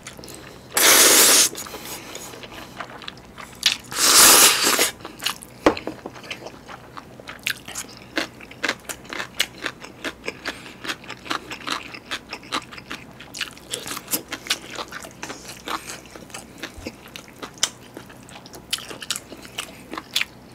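Close-miked eating of chewy spicy noodles: two loud slurps in the first five seconds, then steady wet chewing with many short clicks and smacks as a mouthful of noodles and tteokgalbi patty is chewed.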